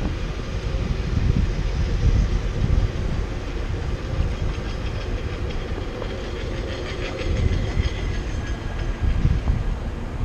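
Car driving slowly through city traffic: a low, fluctuating rumble of road and wind noise, with a run of fine rapid clicks in the middle.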